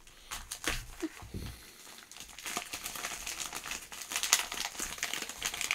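Plastic mailer bag wrapped in packaging tape crinkling and rustling as it is cut open and pulled apart by hand. The irregular crackles get louder in the second half.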